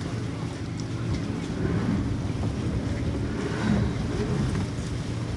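Boat engine running steadily at low speed, with wind buffeting the microphone.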